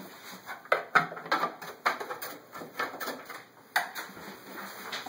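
Footsteps on stairs: about a dozen irregular knocks and clicks.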